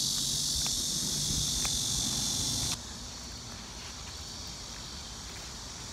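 A chorus of cicadas buzzing in a steady high drone, loud for the first three seconds and then noticeably fainter, over a low outdoor rumble.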